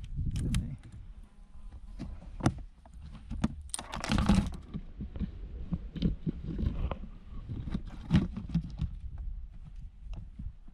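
Scattered knocks and clatter of gear being handled on a plastic fishing kayak, over a steady low rumble, with a louder rustling burst about four seconds in.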